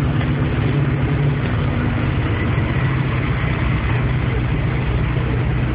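An engine running steadily, heard from inside a vehicle's cabin: a low even hum under a constant rushing noise.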